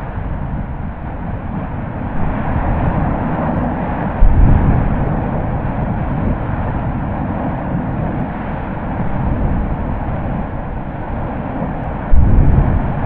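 La Palma volcano erupting: a steady low rumble, broken twice by sudden explosive blasts about 4 s and 12 s in, each dying away over about a second.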